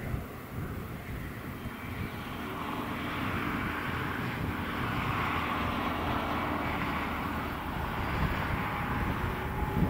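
ÖBB 2143 diesel-hydraulic locomotive's SGP 12-cylinder engine working hard, hauling its train uphill. It is a steady drone that grows louder over the first few seconds as the locomotive passes.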